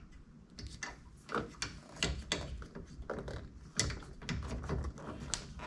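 Irregular clicks and light knocks of a mirror's clamp bracket being handled and fitted onto a roll-cage bar.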